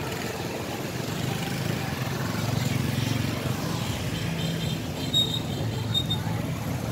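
Outdoor street noise with a vehicle engine running steadily. A few short high-pitched tones come through about two-thirds of the way in.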